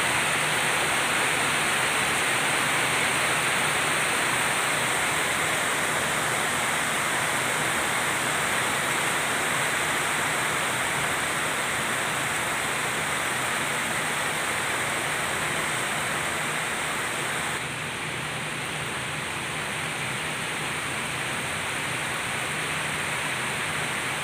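Heavy downpour: an even, steady hiss of pouring rain. It turns a little softer about three-quarters of the way through.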